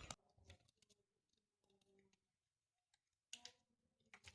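Near silence with a few faint clicks from a refrigerant charging hose's fitting being put onto the charging line's access valve.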